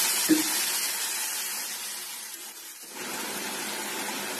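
Water sizzling as it hits the hot fried masala, potatoes and soya chunks in a steel kadhai, the hiss fading over the first few seconds, with a single knock of a steel spoon against the pan early on. About three seconds in, the sound cuts to a steadier, quieter hiss of the curry simmering.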